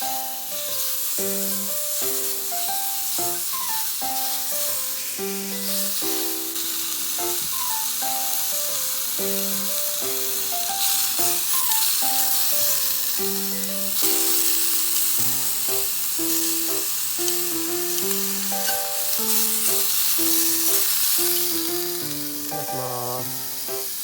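Background music with a melody of short, bouncing notes, over the steady sizzle of pork tongue frying in olive oil in a pan.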